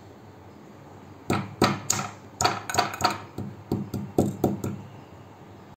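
Green cardamom pods being crushed with a stainless-steel pestle in a steel mortar: about fifteen quick, irregular pounding strikes, starting about a second in and stopping near the end.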